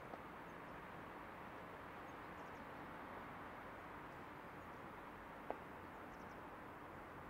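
Quiet open-air ambience: a steady faint background hiss, broken once about five and a half seconds in by a single short, sharp chirp.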